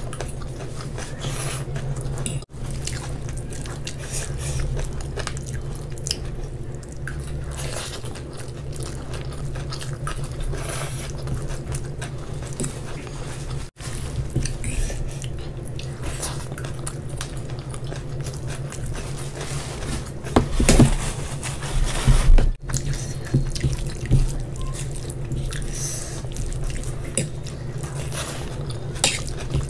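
Close-miked eating sounds: wet chewing, lip smacks and small clicks from people eating noodles and fried rice by hand, over a steady low hum, with a louder flurry of mouth sounds about two-thirds of the way through.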